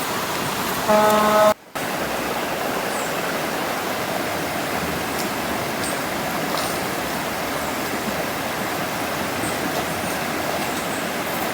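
Rushing river water: a steady, even rush. About a second in, a brief horn-like toot sounds, and then the sound cuts out for an instant.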